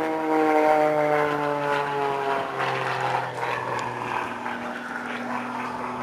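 Eagle 580 aerobatic plane's 360-horsepower piston engine and propeller droning as it climbs steeply away, the pitch slowly falling.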